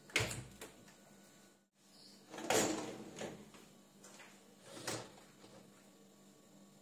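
A Beko dishwasher's door clicking open, then its wire racks rolling out on their rails with a longer rattling scrape about two and a half seconds in, and smaller knocks and a click a little later.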